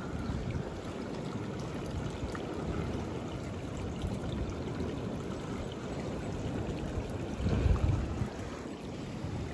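Seawater from the waves rushing in a steady stream across the sand toward the lagoon, with a louder low surge about seven and a half seconds in.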